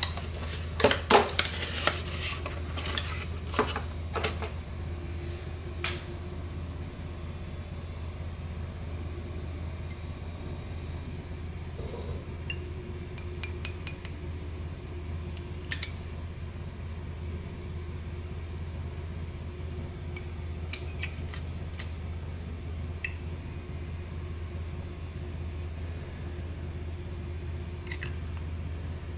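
Handling of a cardboard perfume box and its frosted glass bottle. A burst of sharp clicks and rustles comes as the insert slides out in the first few seconds, then only an occasional faint tap or clink of the bottle and its metal cap, over a steady low hum.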